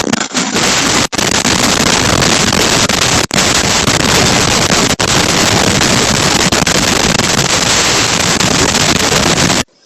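Tornado wind blasting a Ring doorbell camera's microphone: a loud, even rushing noise with a few split-second dropouts, cutting off suddenly near the end.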